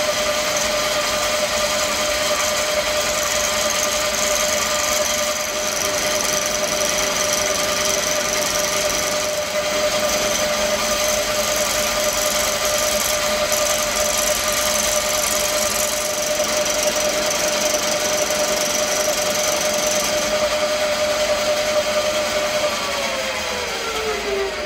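Milling machine running with an end mill taking a facing cut across a metal bar in a vise: a steady motor whine over a hiss. Near the end the motor is switched off and the whine falls in pitch as the spindle runs down.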